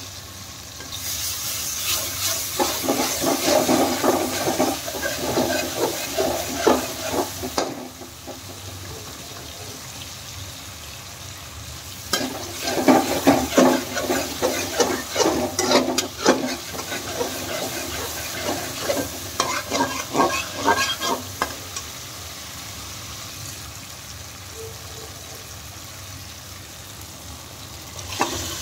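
Tadka masala frying in desi ghee in a nonstick wok, sizzling steadily, with three spells of a flat spatula stirring and scraping across the pan, the middle one the loudest. Right at the end chopped turnip pieces tip into the pan.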